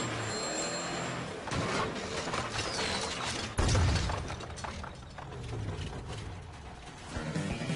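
Cartoon slapstick sound effects: a high steady tone in the first second, then clicks and rattling, and a sudden loud crash of breaking about three and a half seconds in, followed by clattering.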